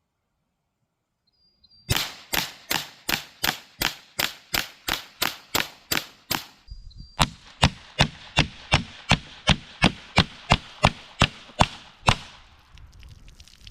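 Huben GK1 Mini .30 calibre semi-automatic air pistol firing at max power in rapid strings of sharp shots, about three a second. There are two runs of over a dozen shots each, separated by a brief pause.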